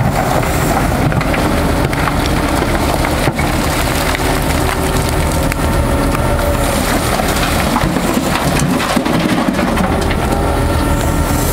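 Liebherr R 944 C crawler excavator working under load, its diesel engine running steadily while the steel bucket scrapes and crunches through broken rock. About two-thirds of the way in, rocks clatter as they are dumped into the steel body of a MAN tipper truck.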